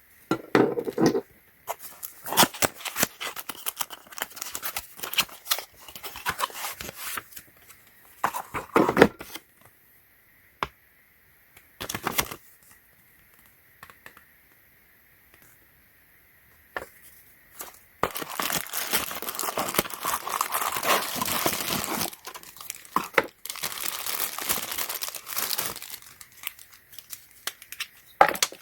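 Product packaging being handled and torn open, crinkling and tearing in irregular bursts with sharp crackles, then a longer stretch of steady crinkling in the second half.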